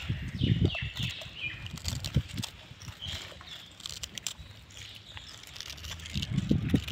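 Outdoor ambience: short high chirping calls, mostly in the first second and a half, over irregular low rumbling thumps that are loudest near the start and near the end.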